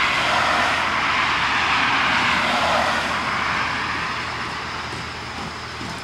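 A car passing on the road: tyre and engine noise loudest in the first few seconds, then fading away, over a steady low hum.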